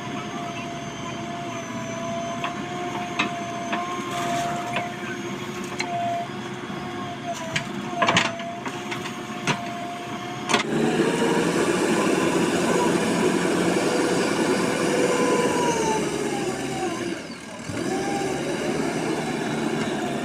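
JCB 3DX backhoe loader's diesel engine running with a steady whine and a few sharp knocks. About halfway it suddenly gets louder, the engine pitch drifting as it works under load, and it drops briefly near the end before picking up again.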